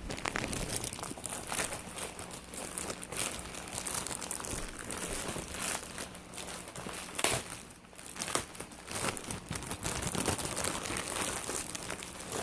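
Packaging crinkling and rustling as it is handled, a dense irregular crackle with a few sharper crackles.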